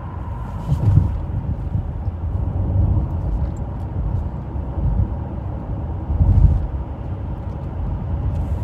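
Car driving along a road, heard from inside the cabin: a steady low road and engine rumble that swells briefly about a second in and again later on.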